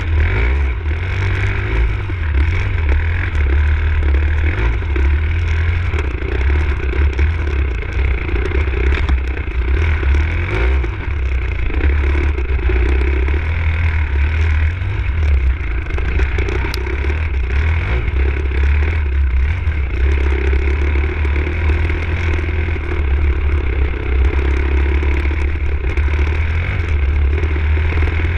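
Enduro motorcycle engine running continuously while the bike is ridden over dirt, the level swelling and easing as the throttle is worked, with a heavy low rumble.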